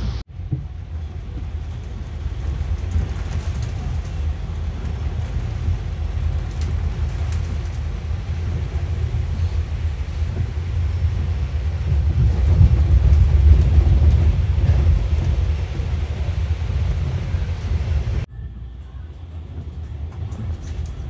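Steady low rumble of a moving bus, heard from inside the cabin, swelling a little in the middle. It breaks off suddenly near the end to quieter traffic noise.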